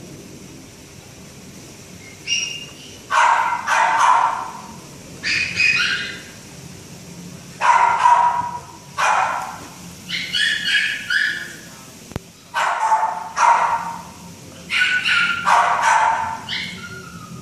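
Great Dane puppy barking in repeated bouts every second or two, some barks low and full, others high-pitched yelps and whines.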